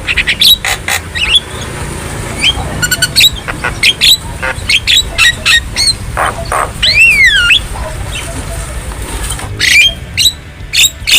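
Javan myna calling: a run of short, harsh, clicking and chattering notes, with one long slurred whistle that drops and then rises again about seven seconds in.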